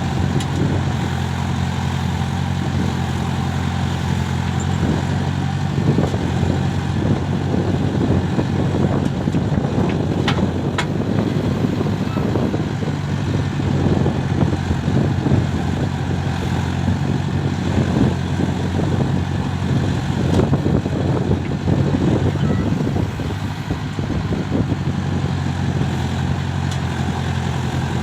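Diesel engine of a backhoe loader working: a steady low engine note, with rougher, uneven noise over it for most of the stretch that eases off near the end.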